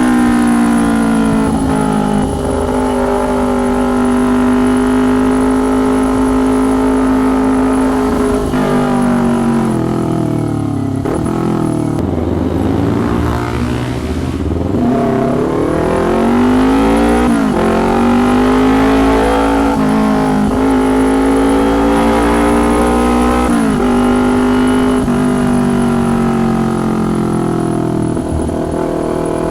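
Kawasaki Ninja 250's parallel-twin engine running through a loud custom exhaust under way. It holds a steady note, falls in pitch about ten seconds in, then climbs again, with several quick drops and rises as the rider shifts and gets back on the throttle.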